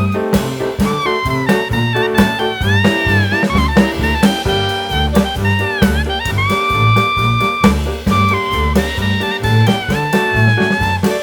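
Background music: an upbeat jazz-style track with a horn melody over a steady bass and drum beat.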